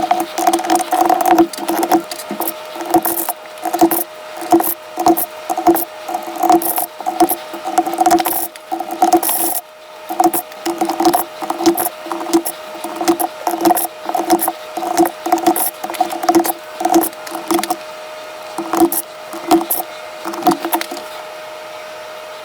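Mechanical keyboard being typed on: a quick run of keystrokes, several a second, each with a hollow knock, over a steady faint tone. The typing stops about a second before the end.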